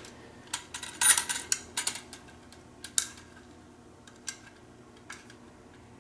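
Small metallic clicks and clinks of screws and aluminium antenna parts being handled, with a cluster about a second in and a few scattered ones after.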